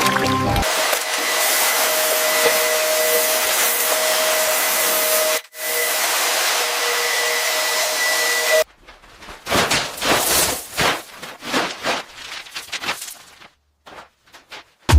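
A power tool's motor running with a steady whining hiss and a few held tones, cutting out for a moment in the middle and stopping about nine seconds in. Then comes a run of irregular short rasping strokes, like sawing or scraping.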